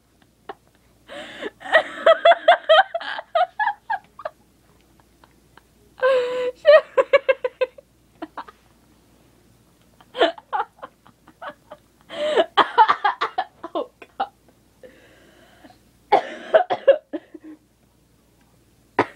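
A person laughing in five bursts a few seconds apart, each a run of quick breathy pulses, with coughs mixed in.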